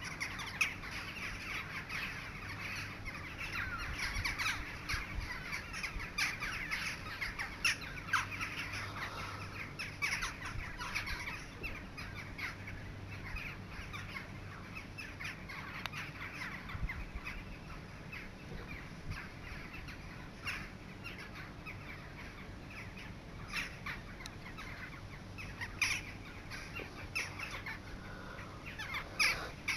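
A large flock of crows calling while circling overhead, with many short caws overlapping into a constant chorus. The calling thins out in the middle and grows denser again near the end.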